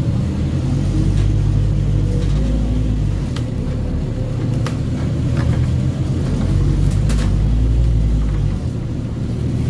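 Scania Omnicity N230UD double-decker bus's five-cylinder diesel engine pulling under way, heard from inside the passenger saloon: a deep drone that eases about three seconds in, builds again, then drops off near the end. A few short rattles from the bus body.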